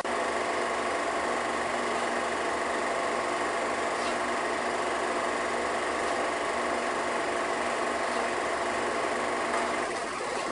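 Film projector running, a steady mechanical whir and clatter with a constant hum.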